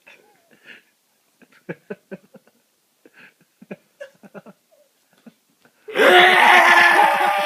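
Scattered soft chuckles, then about six seconds in a sudden loud burst of laughter lasting over a second.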